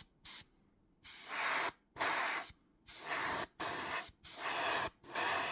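Airbrush spraying in short bursts of hiss: two quick puffs at first, then about six bursts of roughly half a second each, one after another with brief pauses between.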